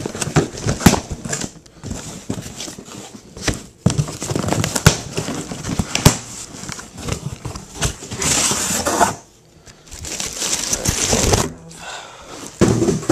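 Cardboard shipping box being opened and handled: scraping, knocks and clicks of the cardboard, with crinkling of packing material. There are two longer stretches of dense rustling and tearing about eight and ten seconds in.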